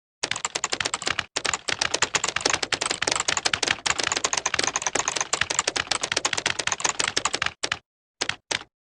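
Computer keyboard being typed on fast, a dense run of key clicks with a brief break about a second in, stopping near the end and followed by two single key presses.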